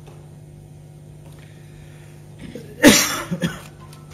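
A single cough about three seconds in, with a couple of smaller after-bursts, over a steady low hum in the room.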